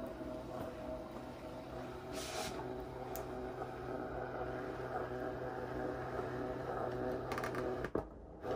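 Brother ScanNCut cutting machine scanning: its feed motor runs with a steady hum, drawing the cutting mat with its fabric panel through the rollers, with a click and a brief break near the end.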